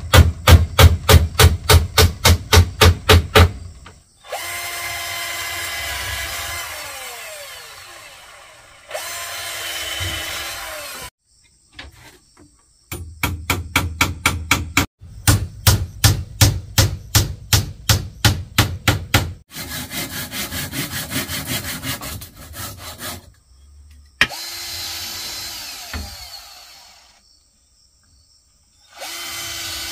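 Runs of rapid hammer blows, about four or five a second, alternating with bursts of a handheld power tool, likely a drill, running for a few seconds at a time with its pitch sagging under load.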